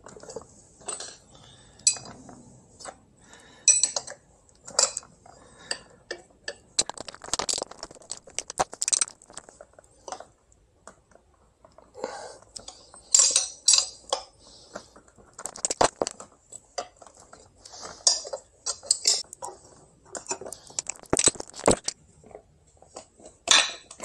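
Metal tire lever clinking, knocking and scraping against a scooter wheel rim as a tubeless tire bead is levered over it, in irregular clicks and knocks, several in quick runs.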